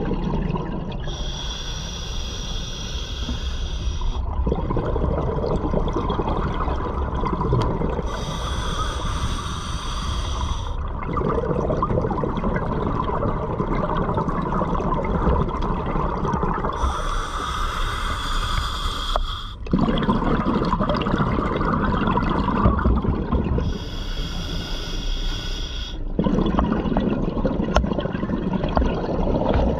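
A scuba diver breathing underwater through a regulator, about four slow breaths. Each inhale is a hiss from the demand valve, and each is followed by a longer, lower rush of exhaled bubbles.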